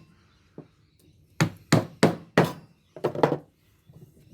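Hammer striking a block of wood held against the copper winding of a light ballast, driving the winding out of its steel core: one light knock, then about five hard blows in quick succession.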